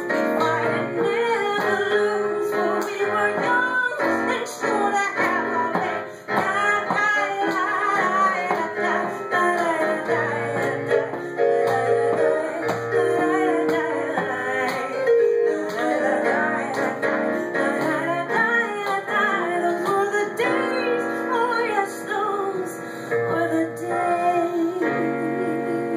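A woman singing a melody into a microphone, accompanied by a Yamaha electronic keyboard.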